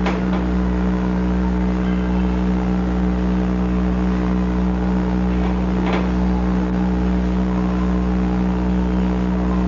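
A steady low electrical hum with a buzzing edge that does not change. There is a faint click near the start and another about six seconds in.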